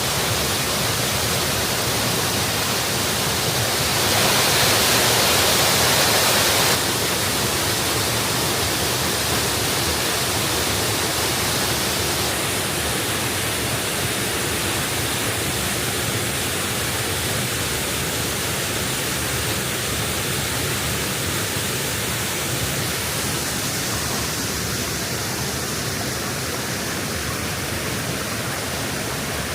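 Waterfall's steady rush of falling water, picked up by a DJI Osmo Pocket 3's built-in microphone. It gets louder and brighter about four seconds in, then drops back after a few seconds and stays even.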